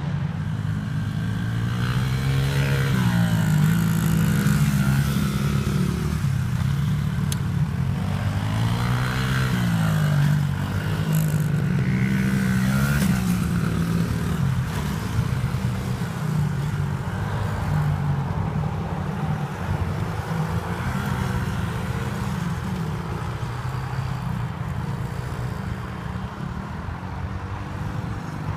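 Small youth dirt bike engine revving up and down over and over as it is ridden around the track, its pitch rising and falling. It is louder in the first half and grows fainter later as the bike moves away.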